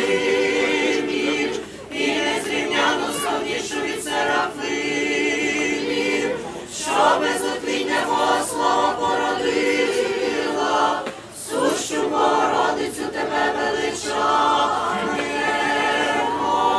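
A choir of voices singing Eastern-rite liturgical chant a cappella, in long held phrases with short pauses between them.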